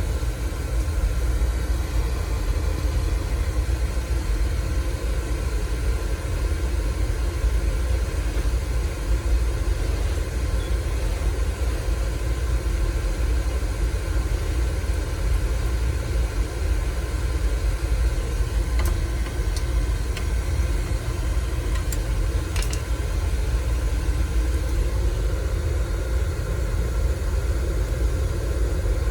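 Oil furnace's gun-type burner running after a fresh light-off: a steady low rumble of the burner motor, fan and flame, while the flame is still a bit smoky and the burner's air is being adjusted. A few faint clicks come about two-thirds of the way through.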